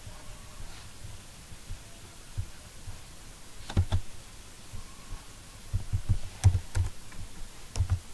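A double click of a computer mouse about four seconds in, then a quick run of computer keyboard keystrokes near the end, each a dull tap with a faint tick.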